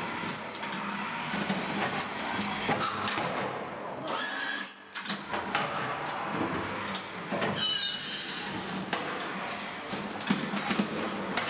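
Newspaper printing press running: a steady mechanical clatter and rattle with irregular clicks, dropping away briefly about five seconds in.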